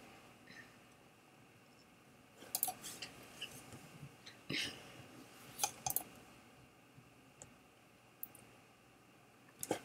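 Faint, scattered computer mouse clicks, a handful spread over several seconds, with quiet room tone between them.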